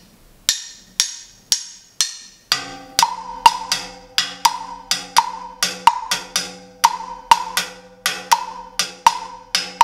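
Timbale sticks demonstrating the cascara pattern with the 2-3 clave on a jam block. A few evenly spaced stick clicks come first, then from about two and a half seconds in a dense run of sharp wooden clicks, with a steady ringing tone underneath.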